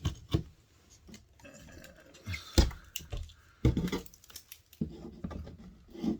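Irregular knocks, clicks and clatter of hard parts being handled and set down on a desk, with two louder knocks about two and a half and three and a half seconds in.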